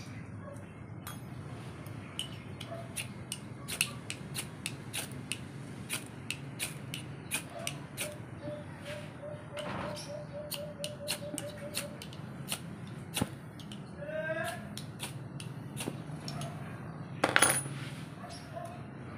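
Light metallic clicks and clinks of a small camping alcohol stove and its metal pot stand being handled and set up, with a louder clatter near the end. A bird calls faintly past the middle.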